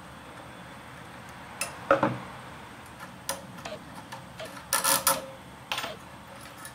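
Metal clicks and clinks of a screwdriver and wrench working a small machine screw and washers out of a thin sheet-metal joint on steel tubing. The sharpest knock comes about two seconds in, with scattered clicks after it and a quick cluster near the end.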